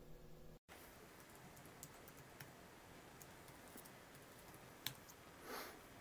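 Faint typing on a computer keyboard: scattered soft key clicks, with one louder click near the end.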